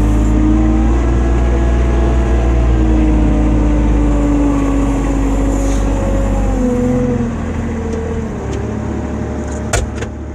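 ATV engine running under way, its pitch rising and falling with the throttle, then easing off about seven seconds in. Two or three sharp clicks come near the end.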